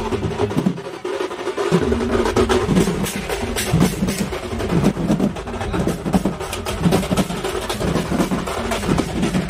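Loud DJ dance music with a heavy drum beat from a sound system; the bass drops out for about a second near the start, then the beat comes back in.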